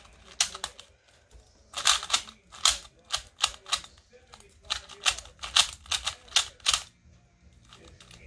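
Stickerless plastic 2x2 speed cube (MoFang Jiaoshi MF2) being turned by hand: quick runs of sharp clacking clicks in bursts, with short pauses between them and a lull near the end.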